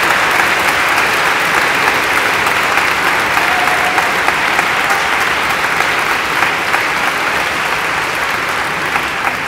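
Audience applauding in a large hall, a dense, steady clapping that eases off slightly near the end.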